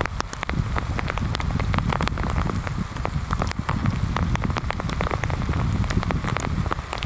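Heavy rain falling, with many sharp, scattered drop hits over a steady low rumble.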